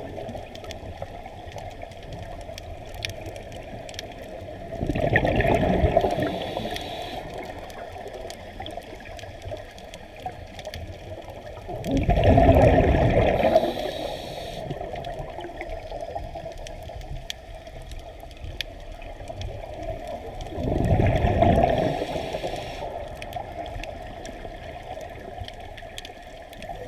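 Scuba diver breathing through a regulator underwater: three loud bursts of exhaled bubbles about eight seconds apart, with quieter water noise between them.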